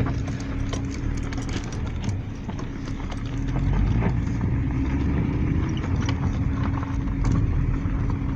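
A car driving along a mountain road: the engine and tyres give a steady low hum, with frequent small knocks and rattles.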